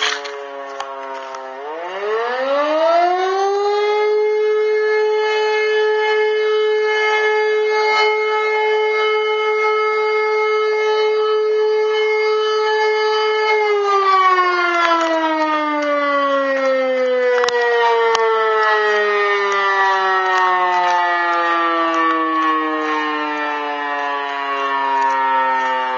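Motor-driven fire siren sounding the alarm that calls out the volunteer fire brigade: it winds up about two seconds in, holds a steady tone for about ten seconds, then slowly winds down as the rotor coasts.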